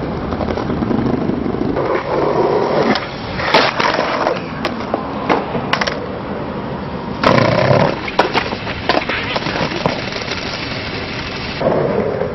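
Skateboard wheels rolling on rough asphalt, with the clacks and slaps of the board hitting the ground in falls. The loudest crash comes a little after seven seconds in.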